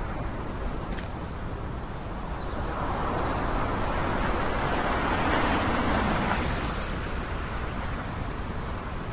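A Range Rover SUV drives over dirt ground. Its engine and tyre noise swells over a few seconds in the middle and then fades as it passes, over a steady low rumble of wind.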